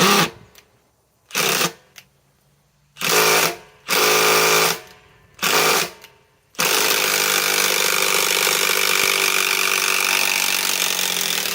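Milwaukee M18 Fuel 3/8-inch compact impact wrench hammering on a fastener to loosen and remove it. There are five short trigger bursts, then about five seconds of continuous hammering from about six and a half seconds in.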